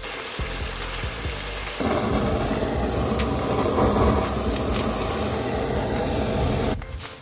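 Chicken sizzling in a frying pan. About two seconds in, a handheld kitchen blowtorch is played over the meat with a steady rushing flame noise that is louder than the frying. The torch cuts off suddenly near the end.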